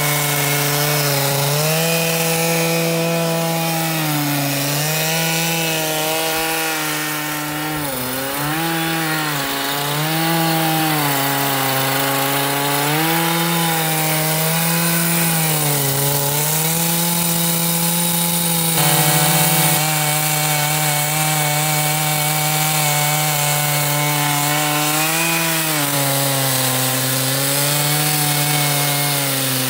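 Chainsaw mill ripping lengthwise through a Cedar of Lebanon log, the chainsaw engine running flat out under load. Its pitch sags and recovers as the cut loads and eases, dipping most around a quarter and halfway in.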